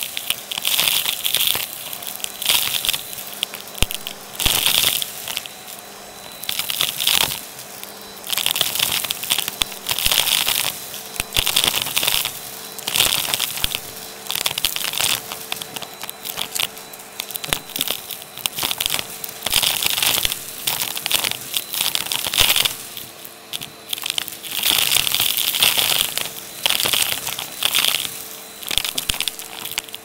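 Vacuum cleaner hose with no attachment sucking up shell fragments, plastic beads and bits of straw from carpet: repeated bursts of crunching, crackling rattle as the debris is pulled through the hose, over the steady suction rush and hum of the vacuum motor.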